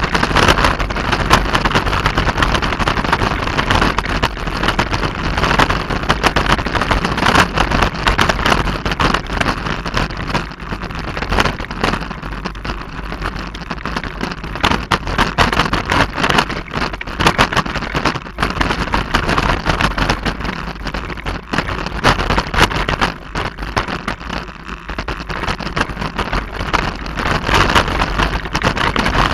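Mountain bike clattering down a rough trail: steady tyre noise on dirt and rock, with dense rattling and knocking from the bike. It eases off briefly twice, about twelve and twenty-four seconds in.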